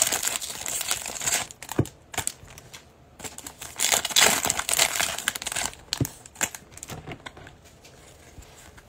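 Foil wrapper of a Prizm football card pack crinkling as it is torn open and the cards are pulled out, in two spells about a second long each, a couple of seconds apart. Scattered soft clicks of card handling follow.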